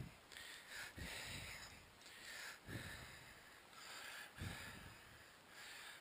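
Faint breathing close to the microphone: a few short noisy breaths, spaced a second or so apart.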